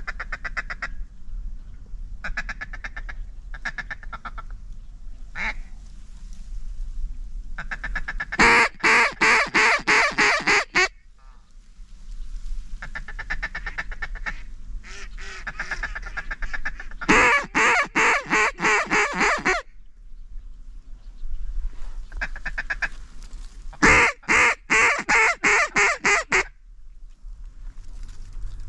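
Mallard duck call blown to work passing ducks: rapid runs of quacks, three of them very loud, about a third of the way in, past halfway and near the end, with softer, faster chatter in between.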